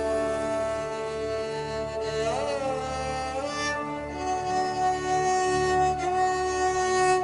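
Slow ambient music of long held melodic notes over a low drone, with one note gliding upward about two seconds in.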